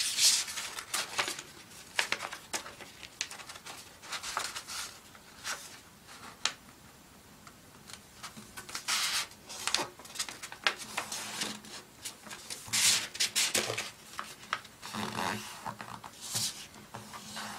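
A sheet of paper being folded by hand: rustling and crinkling in irregular bursts, with sharp scrapes as fingers run along the creases.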